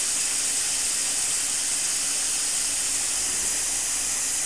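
Compressed air hissing steadily out of a small air compressor's tank as it is bled down toward the pressure at which the compressor cuts back in. The hiss is even and unbroken, with a faint low hum underneath.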